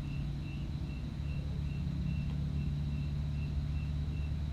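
Steady low background hum with no speech, and a faint high-pitched chirp repeating about two or three times a second.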